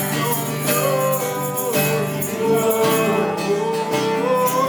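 Live worship song: acoustic guitar playing under a singing voice that holds and slides between long notes.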